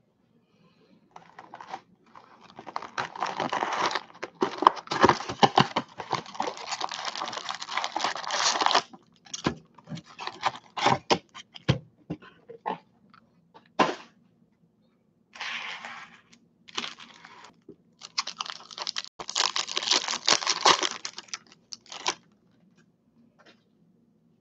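A trading-card box being torn open and its foil card packs handled and ripped open: crinkling and tearing of wrapper and cardboard, with a long run in the first third, scattered short bursts in the middle and another run near the end.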